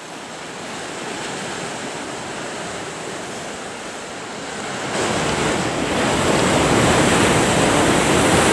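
Sea surf washing on the shore, a steady rushing noise that fades in and grows louder about five seconds in, with some wind on the microphone.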